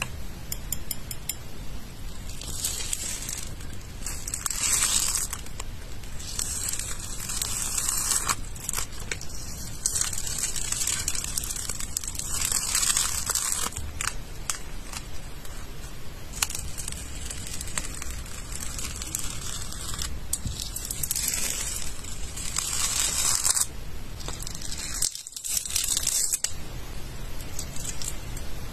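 Thin peel-off film being lifted with tweezers and pulled away from smooth surfaces: crackling, tearing pulls of a second or two each, repeated many times, with small clicks in between.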